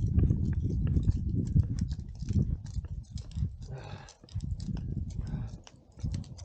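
Rumbling, gusting wind noise on the microphone, with many short sharp clicks and taps throughout; the rumble drops away briefly about four seconds in.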